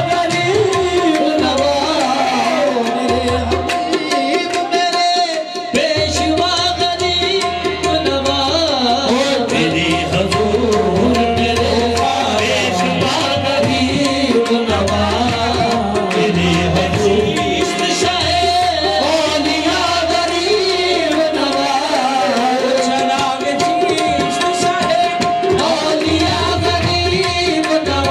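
Qawwali music: a singing voice over tabla, with a steady held harmonium note underneath.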